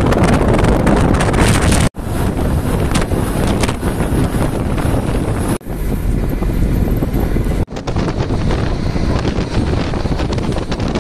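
Wind rushing over a phone microphone at the window of a moving bus, over the bus's road and engine noise. The sound drops out sharply three times for a split second.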